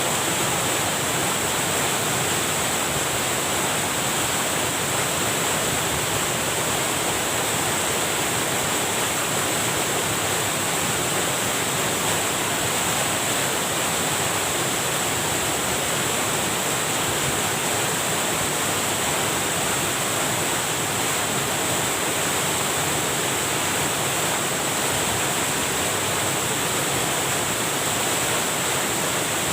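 Water rushing steadily over a small weir, the stream running high after heavy rain.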